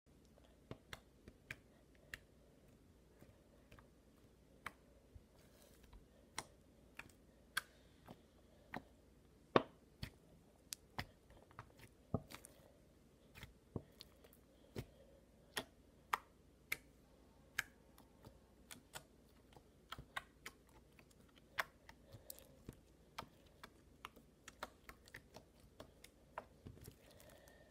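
Slime being poked and kneaded by fingers, giving off irregular sharp clicks and pops, about two a second, some louder than others.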